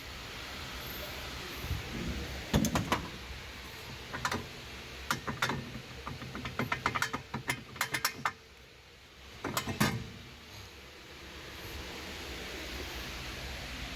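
Metal tools clicking, knocking and clinking in irregular clusters during rear wheel hub work, over a steady hiss.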